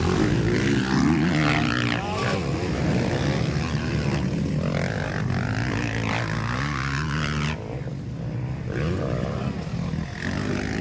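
Motocross dirt bikes racing, their engines revving up and down as the riders work the throttle over the track's jumps.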